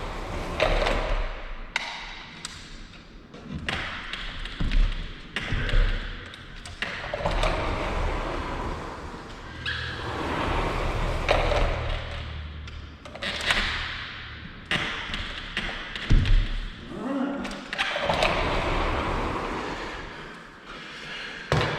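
Repeated knocks, taps and scraping as a pocket door handle is worked and pressed into its cutout in the door.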